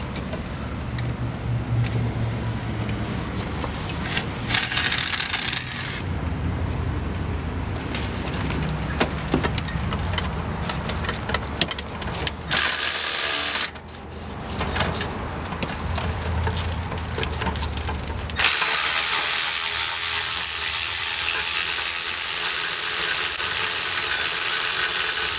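Hand tools clicking and clanking against metal while the water pump and fan are unbolted from a GM LS V8. Near the end a steady hiss takes over and is the loudest sound.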